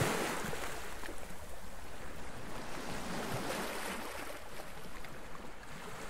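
Steady rush of sea water and wind aboard a sailing catamaran under way.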